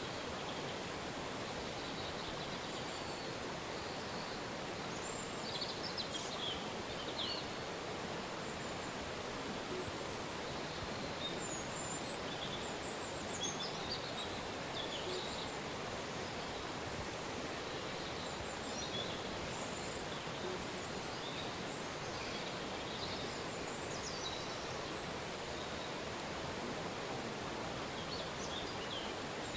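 Steady rushing of a river, with scattered short, high bird chirps and calls throughout.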